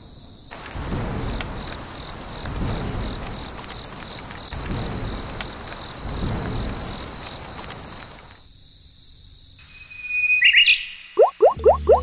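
Rain and storm sound effect: a hiss of rain with low swelling rumbles every couple of seconds, over a steady high chirring. The storm stops about eight seconds in; near the end a high chirp is followed by a quick run of loud rising whistle-like sweeps.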